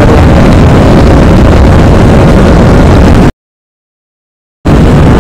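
Wind blasting an earphone-headset microphone on a motorcycle rider at speed, a loud, distorted rush of wind and road noise. About three seconds in the audio cuts out completely for over a second, then the rush returns.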